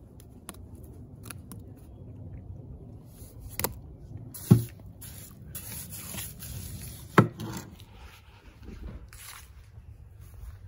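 A shovel scraping through wet cement mix in a steel wheelbarrow, with two sharp knocks of the tool against the barrow about four and a half and seven seconds in.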